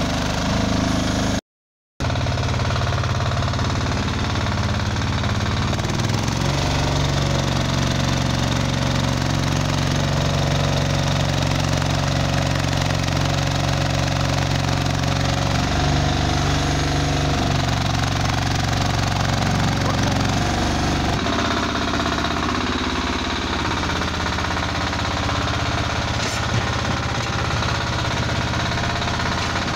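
Engine of a mini 4x4 stand-on loader running steadily under load as it pushes manure with its bucket, its pitch shifting a little as the machine works. The sound cuts out completely for a split second about a second and a half in.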